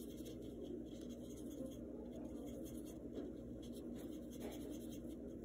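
Paintbrush stroking paint onto a stretched canvas: faint, soft scratchy brushing over a low steady room hum.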